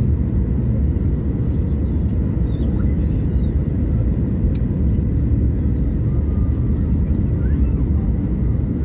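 Steady low rumble inside an airliner cabin on approach to land: jet engine and airflow noise heard from a window seat over the wing.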